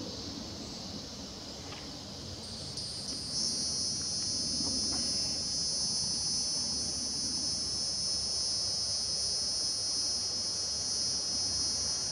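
Insects chorusing: a dense, steady high-pitched drone that swells about three seconds in and then holds level.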